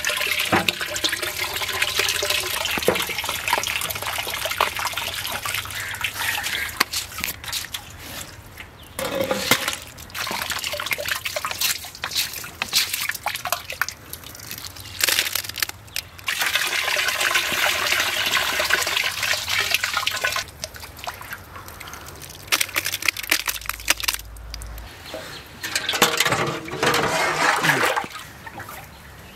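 Water splashing and pouring as a large batch of grapes is washed, coming in several spells a few seconds long with quieter gaps between.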